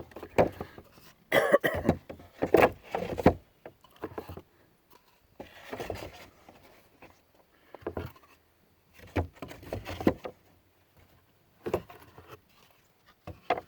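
Irregular knocks and clatter of seasoned white pine test boards being handled in a shot-up milk crate.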